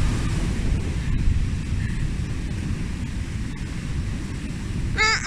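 Ocean surf washing up over a sandy beach, with wind rumbling on the microphone.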